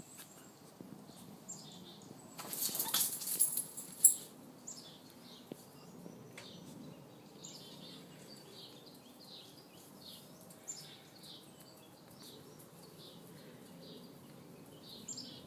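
A small pet hiccuping: short faint high squeaks repeating about two to three times a second. About two and a half seconds in there is a louder rustling burst that ends in a sharp click.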